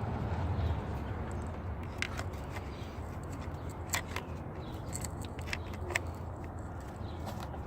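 Hand tools working metal fittings in the engine bay: a few scattered light clicks and scrapes of pliers on the hose clamp, over a steady low hum.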